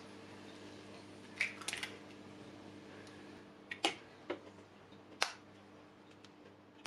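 Hen's eggs being cracked into a mixing bowl: a few sharp taps and clicks of eggshell against the bowl rim and the shell breaking, a cluster about a second and a half in and more around four to five seconds, over a faint steady hum.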